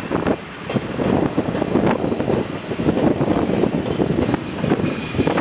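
Freight train of cement tank wagons rolling slowly past, a loud steady rumble of wheels on rail. Near the end a steady high-pitched squeal comes in: wheels or brake shoes squealing as the train brakes to a stop in the station.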